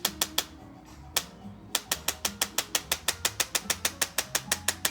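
Chiropractic adjusting instrument clicking against the child's spine: three quick clicks, a single one a little after a second in, then a fast even run of about twenty at six or seven a second.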